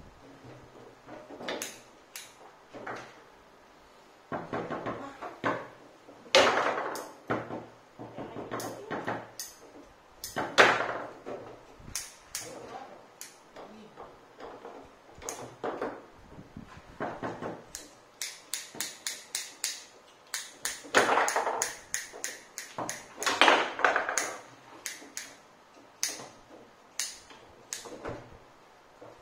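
Foosball game in play: the hard ball clacks against the plastic men and the table walls, and the rods knock as they are spun and slid. Separate knocks come in irregular bursts, with quick runs of taps in places.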